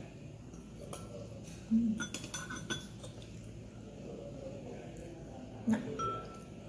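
Metal cutlery clinking against ceramic bowls: a quick cluster of clinks about two seconds in, and another clink near the end that rings on briefly.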